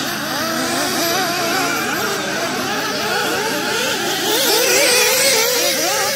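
Several radio-controlled off-road buggies racing together, their small high-pitched motors revving up and falling back again and again, overlapping one another.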